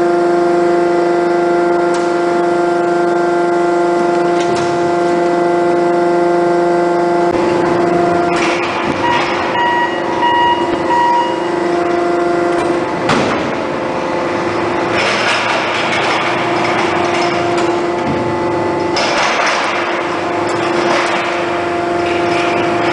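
Boldrini 300-ton dishing press at work on a steel plate, its hydraulics giving a steady hum with a higher whine running through. From about a third of the way in, stretches of hissing noise come and go several times as the ram and manipulator move.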